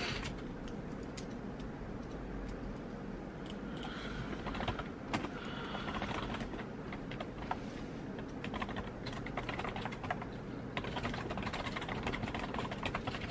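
Typing on a computer keyboard: quick, uneven key clicks coming in runs with short pauses.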